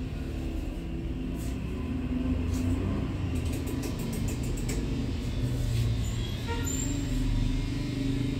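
A motor vehicle's engine running with a steady low rumble. A quick series of light clicks comes about three to four seconds in.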